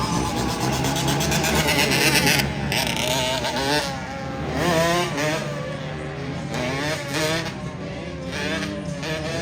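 Motor engines revving up and down over and over, their pitch rising and falling several times a second, over crowd noise.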